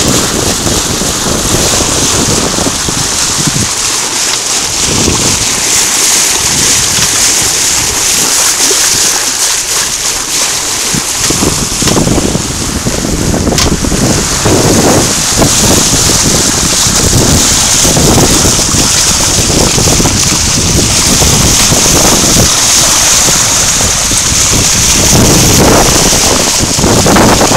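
Wind buffeting the microphone in irregular gusts over a steady hiss and wash of water along a sailboat's bow as it sails.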